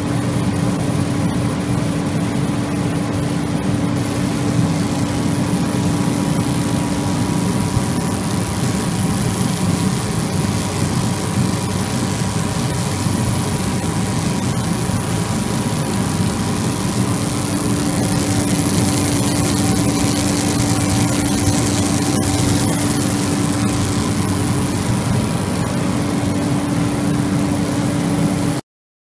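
Giotto galvo laser machine running as it marks a pattern into fabric: a steady rushing roar with a low hum and a faint high whine on top. It cuts off abruptly near the end.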